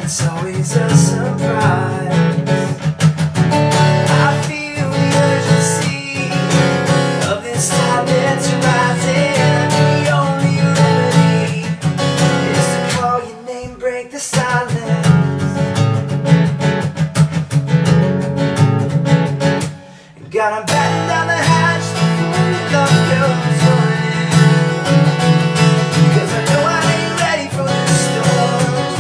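Acoustic guitar strummed in a steady rhythm, with two brief breaks about a third and two thirds of the way through.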